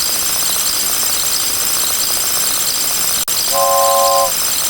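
Toy train horn sounding a chord of several steady tones: one held blast about three and a half seconds in, over a steady hiss. A sharp click comes just before the blast.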